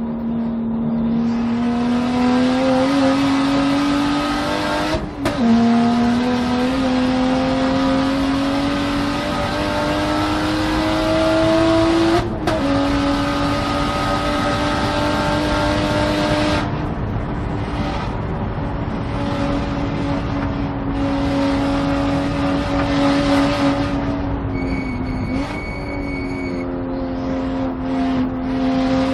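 Single-turbo BMW race car engine pulling hard on track, its pitch climbing through the gears with two quick upshifts about 5 and 12 seconds in. Past the middle it holds a steadier pitch, then dips briefly near the end before pulling again.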